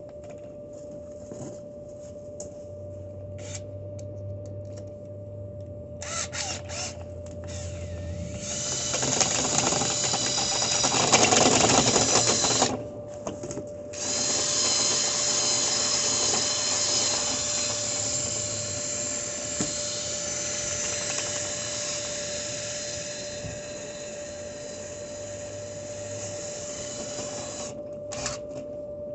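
Power drill spinning a dryer vent cleaning brush through the vent duct. It runs for about four seconds, stops briefly, then runs again for about fourteen seconds before stopping near the end.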